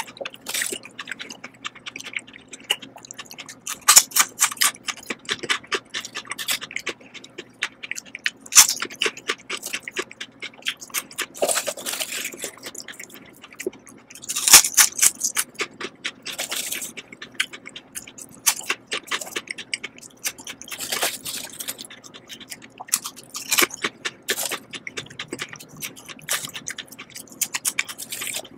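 Lay's potato chips being bitten and chewed close to the microphone: a dense run of crisp crunches, with a louder bite every few seconds. A faint steady hum lies underneath.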